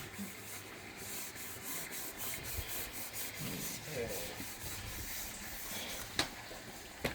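Dishes being scrubbed by hand: repeated rasping rubbing strokes of a scourer against utensils, with two sharp knocks near the end.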